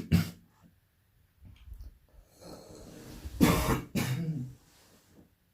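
A man coughing in short, sharp bursts: a double cough at the start and another harder cough about three and a half seconds in.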